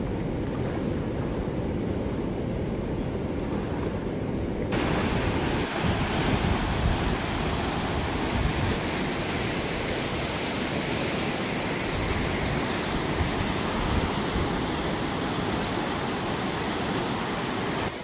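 Whitewater rushing through a river rapid: a steady, even roar of moving water. For roughly the first five seconds there is only a duller, lower rumble, which switches abruptly to the full rushing sound.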